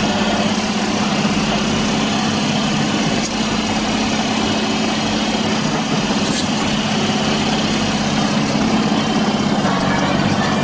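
Yanmar B22 mini excavator's diesel engine running steadily, with a couple of faint clicks.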